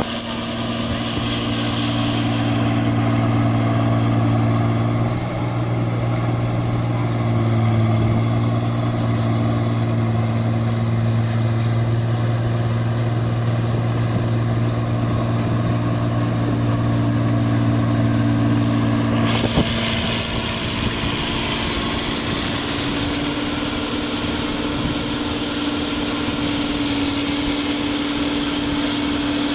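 Rice combine harvester (an 8060) running loudly and steadily with a deep hum. About twenty seconds in the deepest hum drops away and a higher hiss comes up.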